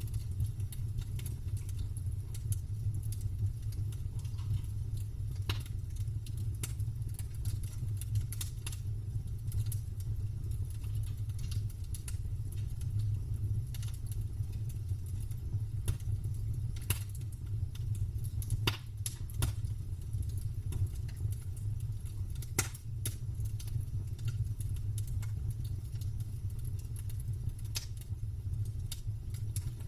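Campfire crackling: scattered sharp pops and snaps of burning wood, a few louder ones about two thirds of the way through, over a steady low rumble.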